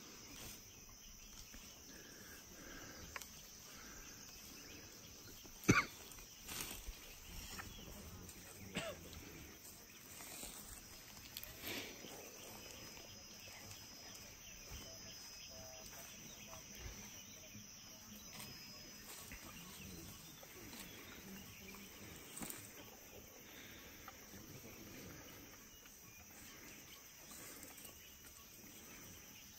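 Forest ambience: a faint, steady high-pitched insect drone, broken by a few short clicks and rustles, the sharpest about six seconds in.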